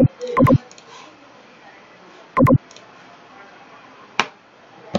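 Computer mouse clicking: a few sharp clicks, mostly in quick pairs, with a single click about four seconds in.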